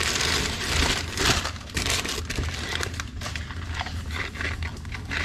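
Brown kraft packing paper crumpling and rustling as hands dig through it in a cardboard box, with a plastic parts bag crinkling as it is lifted out. The rustling is heaviest for the first two seconds, then thins to lighter, scattered crackles.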